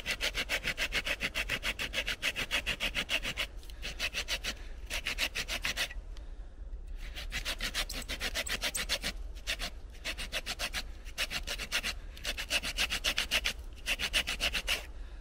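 Small folding hand saw cutting through wood in quick, even strokes. It works in runs of a few seconds, broken by short pauses.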